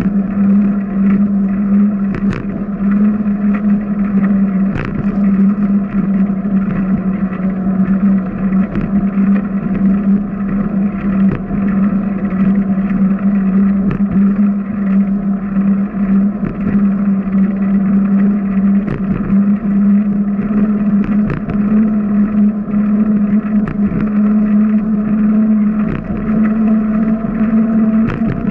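A bicycle rolling along a concrete path gives a steady, loud hum that climbs slightly in pitch near the end as the bike speeds up. Scattered light knocks come from the path's joints and bumps.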